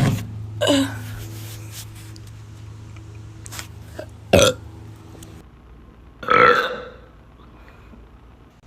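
A woman burping three times: a short burp under a second in, another short one about four seconds in, and a longer, loud burp about six seconds in.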